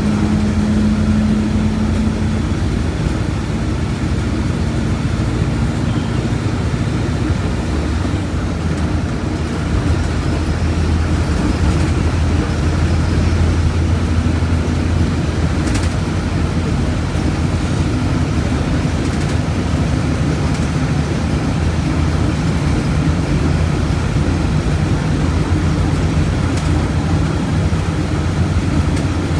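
Volkswagen Volksbus 17.230 OD bus's diesel engine running steadily, with a low drone whose strength shifts a little partway through.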